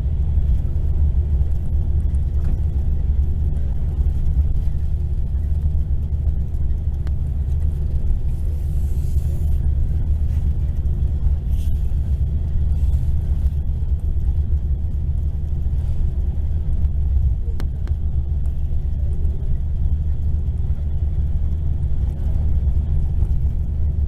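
Mercedes-Benz-engined Irizar New Century 3.90 coach running steadily at highway speed: a constant low rumble of engine and road noise, heard from inside the passenger cabin.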